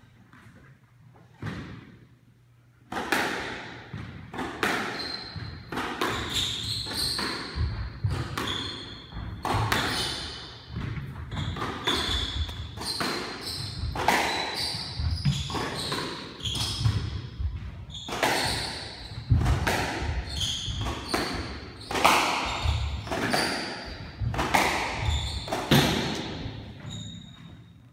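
A squash rally: the ball cracking off racquets and walls about once a second, with short shoe squeaks on the hardwood court floor. It starts about three seconds in and stops just before the end.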